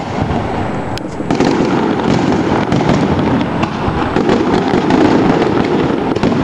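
Aerial fireworks shells bursting in a dense, continuous barrage of bangs and crackling, with one sharp crack about a second in.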